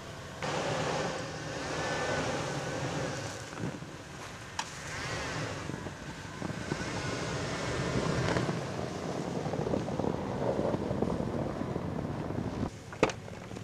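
Chevrolet Silverado pickup truck running while snow is brushed off it, then being driven through deep snow, a steady rough noise that rises and falls. A single sharp knock comes near the end.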